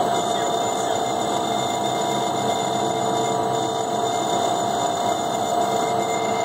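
Tote mixer running steadily with a constant whine over an even mechanical hum, its shaft stirring oil into thick orange juice concentrate.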